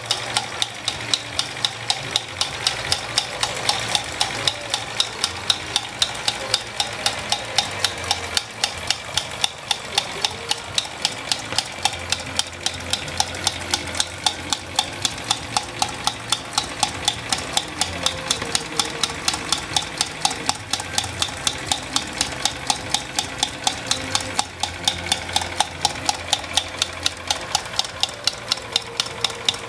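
Wilesco toy steam engine running steadily and driving a toy Empire water pump through a thin line belt: a constant hiss with a regular mechanical clicking, about three clicks a second.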